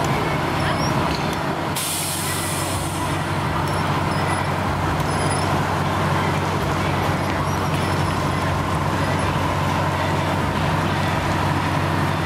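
Engine of an old Seagrave aerial ladder fire truck running as the truck moves off slowly. A sharp hiss of air brakes being released comes just under two seconds in and fades over about a second and a half.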